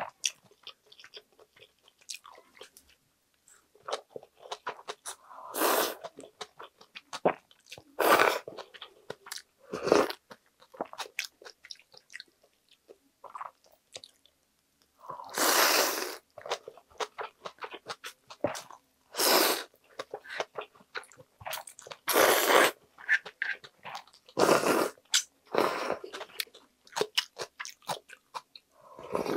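Close-up eating sounds of mulhoe with somen noodles: steady crunchy chewing of raw seafood and vegetables, broken by several louder slurps of noodles and cold broth, the longest about halfway through.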